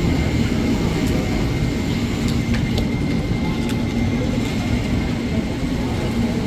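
KRL commuter electric train (ex-JR 205 series) rolling slowly through the station: a steady low rumble and hum with a few faint clicks from the wheels.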